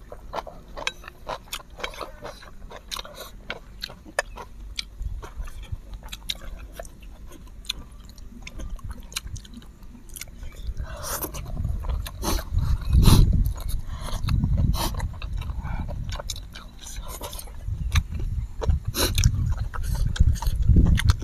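Close-miked eating: chewing and slurping of spicy instant noodles, with many short clicks of chopsticks against bowls. About halfway through, a low rumble comes in and swells twice, loudest just after the middle.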